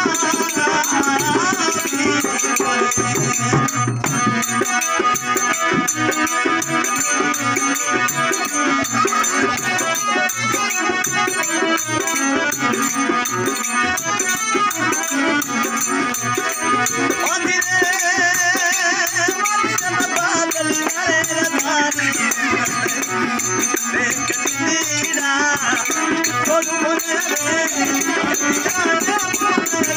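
Live Marwari folk song: a man singing over a harmonium, a steady dholak beat and the continuous jingle of small hand cymbals.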